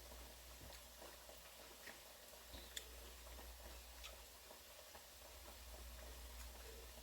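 Near silence: faint room tone with a low hum and a few soft ticks.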